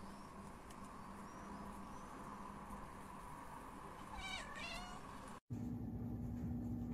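A tabby cat gives one short meow about four seconds in, over faint steady outdoor background.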